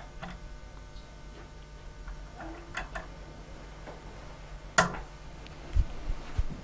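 Fly-tying vise being handled as a hook is clamped in its jaws: scattered small clicks, one sharp click about five seconds in, and a couple of low knocks near the end.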